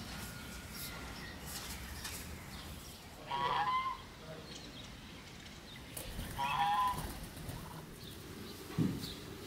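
Domestic geese honking: two loud honks about three seconds apart, the second a little longer. A brief low knock near the end.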